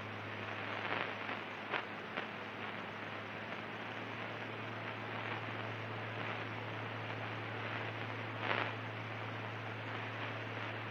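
Light aircraft cockpit in cruise heard through the intercom feed: a steady hiss over a low, even drone, with a few brief crackles.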